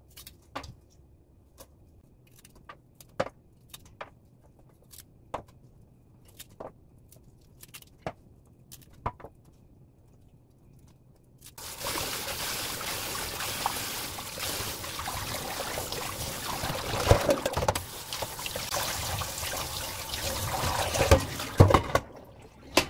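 Small scattered clicks and snaps as the greens' stem bases are trimmed and handled. About halfway in, kitchen tap water starts running into a stainless steel sink as the leafy greens are rinsed, with a few knocks near the end.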